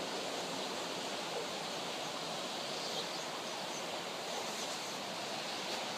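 Steady hiss of ocean surf washing in below.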